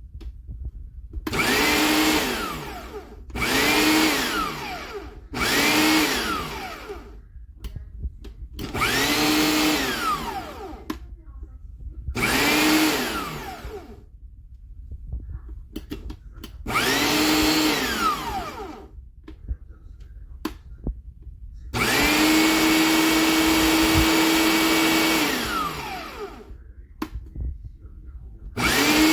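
Electric meat grinder motor switched on in short bursts, about seven times, each run spinning up with a rising whine and coasting down with a falling one when switched off. The seventh run, past the middle, is held longer at a steady whine before it winds down.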